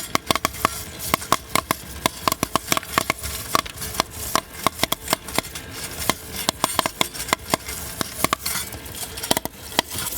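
Popcorn kernels popping in a popcorn machine: a rapid, irregular run of sharp pops, several a second.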